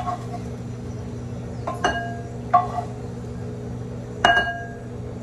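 A frying pan clinks against a glass bowl four times, each strike ringing briefly, as annatto seeds are scraped out of the oil with a wooden spoon. A steady low hum runs underneath.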